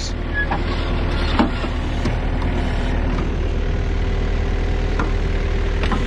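John Deere 1600 wide area mower's diesel engine running steadily under load while mowing, with a steady whine joining in about two and a half seconds in and a couple of brief knocks.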